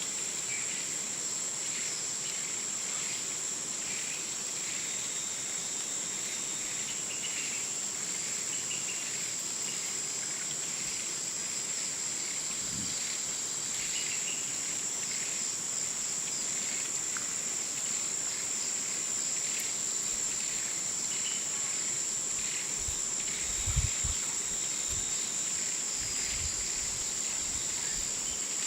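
Hot jungle ambience: a steady, high insect drone over a chorus of short, repeated chirps. A few brief low thumps come near the end.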